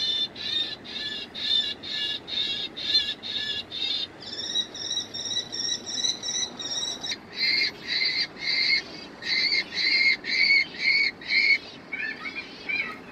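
Acoustic gull deterrent's loudspeaker broadcasting bird calls: a fast run of identical short calls about three a second, then one held two-tone call for about three seconds, then another even run of calls and a few warbling notes near the end.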